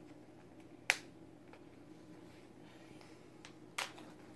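Cat purring softly as a steady low hum, broken by two sharp clicks, one about a second in and another near the end.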